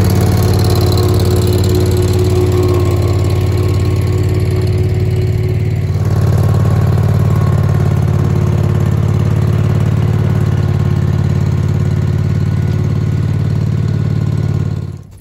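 Yard-Man riding garden tractor engine running steadily as the tractor drives across a lawn towing a small utility trailer. Its note shifts slightly about six seconds in, and it cuts off abruptly just before the end.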